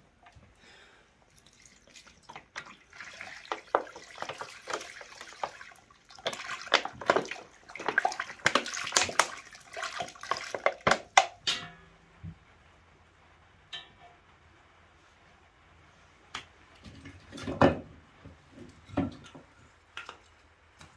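Whey glugging and splashing out of a plastic bottle into an enamel pot for several seconds, heaviest toward the end of the pour. Later, a few separate knocks of split kindling wood being set on a fire.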